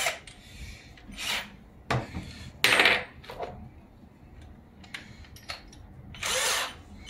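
Electric drill run in several short bursts, each under half a second, with pauses between: drilling the marked holes for the AC unit's mounting plate.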